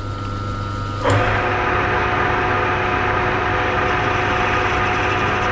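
Manual metal lathe running at its top speed of 648 rpm, a steady machine hum with whining gear tones. About a second in it jumps louder, with a knock and a broader hiss joining the tones.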